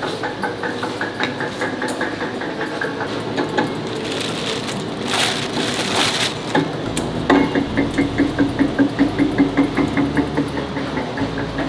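Factory roller mill for silicone compound running, with a rhythmic beat about five times a second that turns louder and fuller after about seven seconds. A plastic bag rustles briefly around five seconds in.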